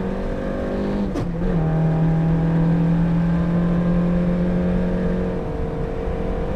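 Peugeot 205 rally car's engine heard from inside the cabin, running hard at a steady note on a straight. About a second in, the note breaks briefly with a knock as it changes gear, and near the end the note eases slightly.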